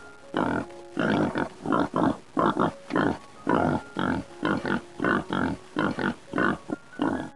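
An animal giving a long series of short, harsh grunts, about two a second, some coming in quick pairs.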